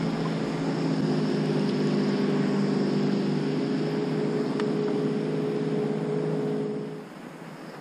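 Steady drone of a motorboat's engine running past at low speed, mixed with the rush of water, dropping away abruptly about seven seconds in.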